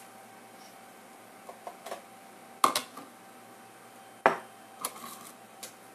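Clicks and clacks of a Pampered Chef Batter Mixer & Dispenser's plastic trigger being squeezed to portion out batter. There are two sharp clicks about a second and a half apart, with lighter clacks before and after.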